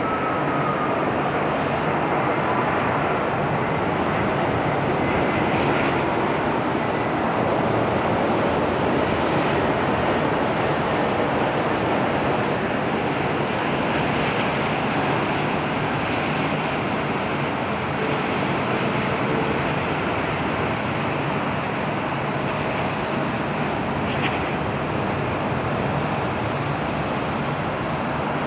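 Airbus A380-841's four Rolls-Royce Trent 970 turbofans on landing: steady jet engine noise through approach, touchdown and rollout, with a faint whine fading in the first second.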